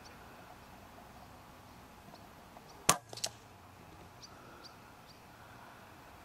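Weihrauch HW100 pre-charged pneumatic air rifle firing a single shot about three seconds in, a sharp crack, followed about a third of a second later by a quieter crack as the pellet strikes the rabbit.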